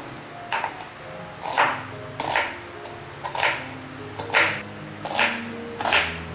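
Kitchen knife chopping a small white onion into dice on a wooden cutting board: about seven sharp cuts, roughly one a second, with background music underneath.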